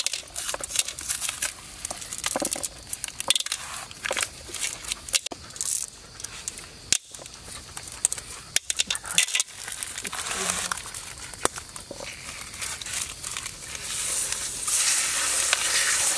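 Mentos candies handled and dropped onto food in an aluminium pot, giving many small sharp clicks and rustles. Near the end Coca-Cola is poured in and foams up with a rising fizzing hiss.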